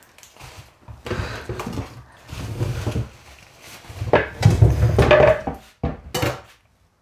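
Handling sounds at a kitchen sink: a plastic shopping bag rustling and things being knocked and set down, in several irregular bursts.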